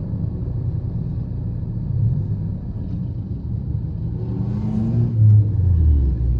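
Low, steady engine rumble of slow-moving traffic heard from inside a car. About four and a half seconds in, a nearby engine revs up with a rising tone.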